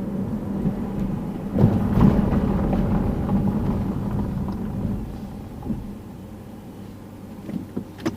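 Engine and road noise of a car being driven, heard inside the cabin as a steady low hum. It is louder and rougher about two seconds in, then quieter for the last few seconds as the car eases off, with a few short clicks near the end.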